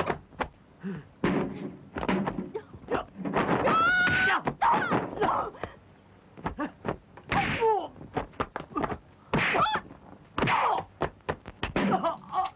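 Kung-fu film fight sound effects: quick runs of punch and kick impacts, mixed with the fighters' shouts and grunts, one cry held longer about four seconds in.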